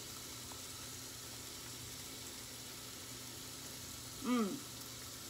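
Steady sizzling of meat frying on an electric contact grill, with a short hum from a person's closed mouth about four seconds in, falling in pitch, while chewing.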